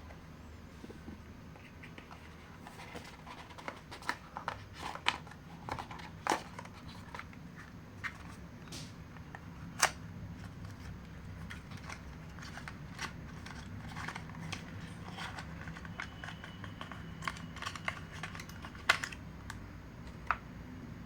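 Hands handling an earbud box and its packaging: irregular clicks, taps and light rustles of cardboard and plastic over a low steady hum.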